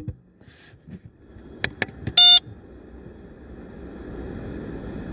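Samsung UV sterilizer box being closed and switched on: a sharp click, a few light clicks, then a single short electronic beep as the sterilizing cycle starts, followed by a faint steady hum. It sounds muffled, heard from inside the closed box.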